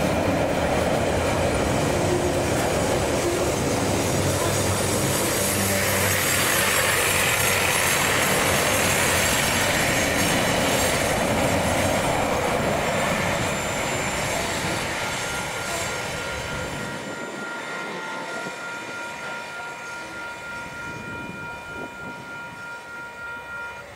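Container wagons of a freight train rolling past close by with a heavy rumble and wheel clatter on the rails. The sound fades after about 13 seconds as the last wagon passes and the train draws away, leaving a thin, steady high-pitched tone.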